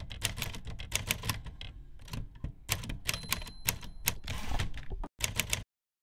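Manual typewriter typing: a quick, uneven run of key strikes and typebar clacks, with a faint high ring about three seconds in. The typing stops abruptly near the end.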